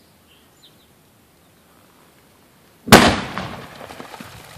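Oxygen-propane charge detonating in a gopher tunnel, set off by a steel-wool igniter: a single sharp bang about three seconds in, whose tail dies away over a second or so.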